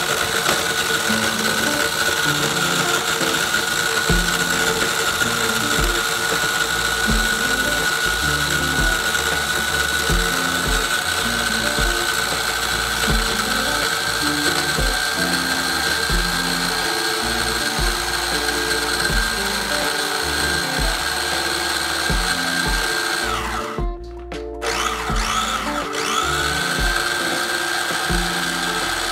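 Electric mini food chopper's motor whining steadily as its blades grind Oreo cookies into crumbs. Near the end it stops for about a second, then starts again, the whine rising back up to speed.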